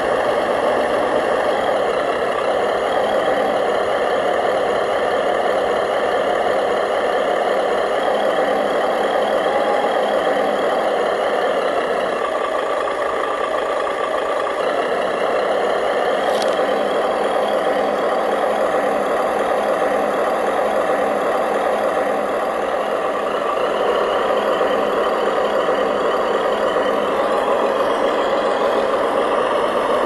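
Remote-control construction machines running: a steady, unbroken mechanical drone from their small motors and drivetrains, with a single sharp click about halfway through.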